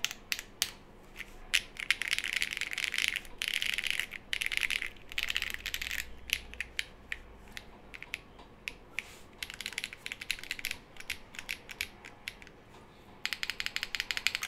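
Typing on a Glacier 80 mechanical keyboard built with lubed Holy Panda tactile switches on a polycarbonate plate and GMK keycaps. Fast runs of keystrokes come about two, four to six, ten and thirteen seconds in, with single key presses scattered between.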